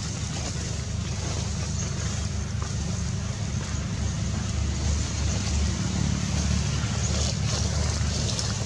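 A steady low rumble with an even hiss over it, growing a little louder about halfway through.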